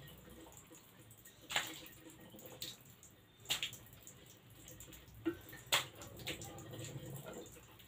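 Hand-cranked chips slicer cutting a raw potato into thin rounds: a few scattered, sharp wet clicks and taps at irregular intervals as the blade goes through and the slices drop.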